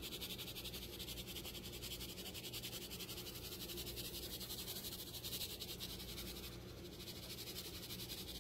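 Low, steady machine hum with a fast, even pulsing, like a small motor or fan running in the room.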